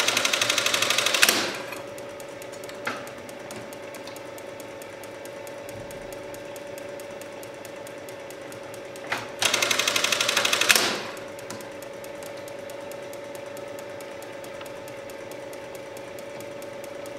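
Dürkopp button sewing machine running two short stitching cycles, each a rapid run of even strokes lasting about a second and ending in a sharp knock, one at the start and one about nine seconds later. A steady hum runs underneath.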